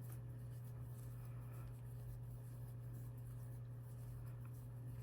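Faint, soft rubbing of a crochet hook drawing yarn through stitches, over a steady low electrical hum.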